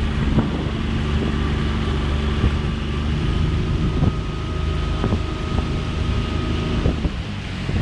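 Small outboard motor running steadily at low throttle, pushing a small boat along, with wind on the microphone. A few short knocks break through it, and the motor note dips briefly near the end.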